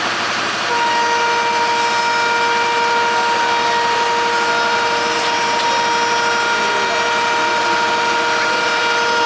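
A train horn sounds one long, steady chord of several tones, starting about a second in and held right through, over the steady running noise of a passing train.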